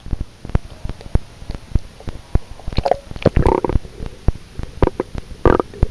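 Underwater recording: a rapid, irregular run of dull knocks and clicks, with bursts of gurgling bubbles about three seconds in and again near the end.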